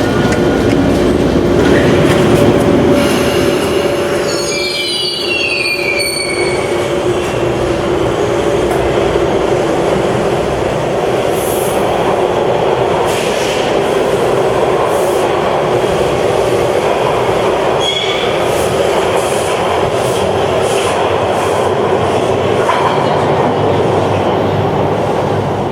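Hawker Siddeley H4 subway train running on the rails, a steady hum at first. About four seconds in comes a high squeal falling in pitch, then even wheel-on-rail running noise.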